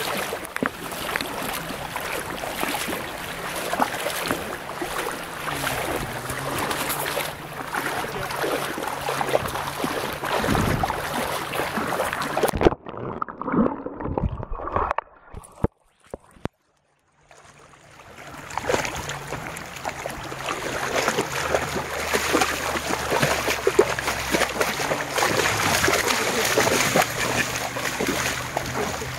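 Shallow seawater splashing and sloshing as an Alaskan malamute wades and runs through it. About halfway through, the sound cuts off suddenly to a muffled near-silence while the microphone is underwater, then fades back into splashing a few seconds later.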